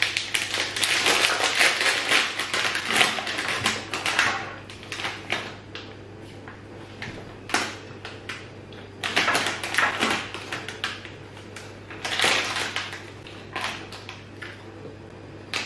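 Crinkling of a plastic Haribo Favoritos candy bag as it is torn open and handled: a dense crackle for about the first four seconds, then short rustles every second or two as hands reach into the bag.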